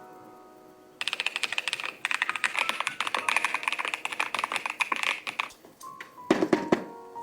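Fast typing on a keyboard fitted with a new set of keycaps: a dense run of rapid key clacks for about four seconds, starting about a second in, then a short pause and a few louder strokes near the end.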